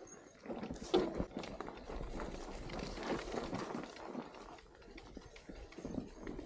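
Mountain bike rattling over a rough, stony trail: a run of irregular knocks and clatters from the tyres and the bike, loudest about a second in.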